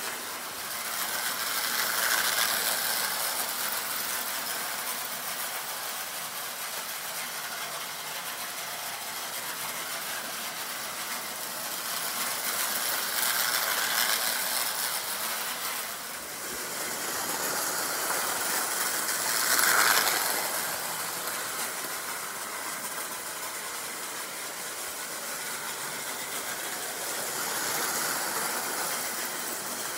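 Prewar American Flyer tinplate toy train running on tubular metal track: a steady mechanical running noise that swells each time the train passes close, loudest about 20 seconds in.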